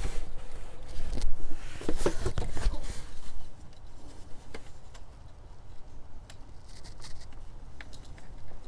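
Hand-work noises in an engine bay: light knocks, clicks and rustling as parts are handled, busiest for the first few seconds, then only sparse small clicks.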